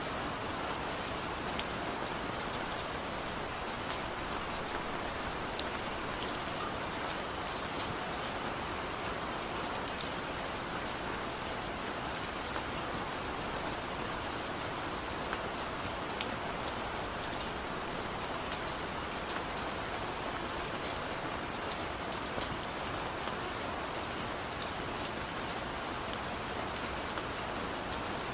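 Steady rain falling, with the patter of individual drops hitting a surface, at an even level throughout.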